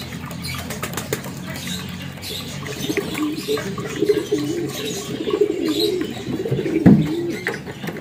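Pigeons cooing over and over, the wavering coos starting about three seconds in and loudest near the seven-second mark.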